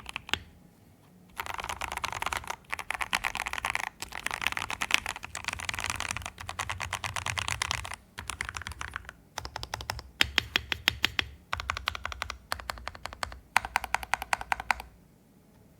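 Noir Gear Timeless82 mechanical keyboard being typed on fast, in bursts of rapid keystrokes with short pauses between them. It has Gateron Oil King linear switches and stabilisers lubed with Krytox 205g0, a polycarbonate plate and ePBT keycaps.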